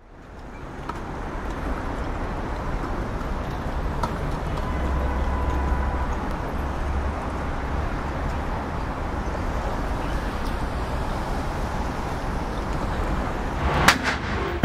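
Steady city ambience of distant road traffic, a low rumble and hiss that fades in at the start. Near the end come a few sharp knocks.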